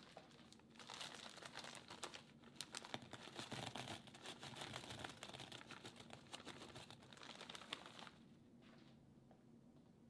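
Mini marshmallows poured into a glass bowl: a dense rustling patter of many small soft taps that starts about a second in and stops about eight seconds in.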